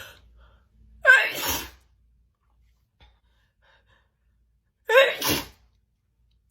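A woman sneezing twice, about four seconds apart, during a messy sneezing fit; each sneeze is a sharp, loud burst.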